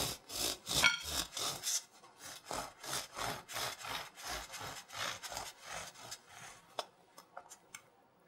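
Bread knife sawing through a baked bagel's crust in rasping back-and-forth strokes, about two or three a second, which die away about six and a half seconds in, followed by a few light clicks.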